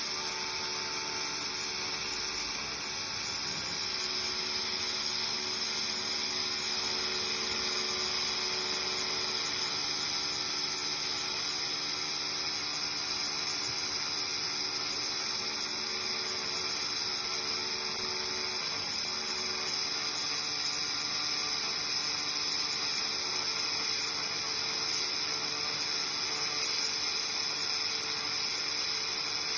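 A 3000 W fiber laser welding machine running: a steady, high-pitched hiss over a faint steady machine hum.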